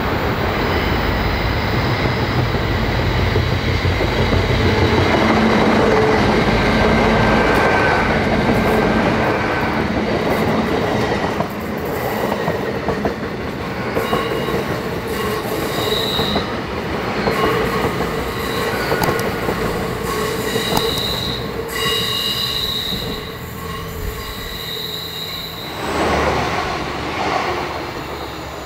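An LNER Azuma passenger train passes close by, its run loudest in the first ten seconds. From about halfway through, its wheels squeal in short high-pitched bursts.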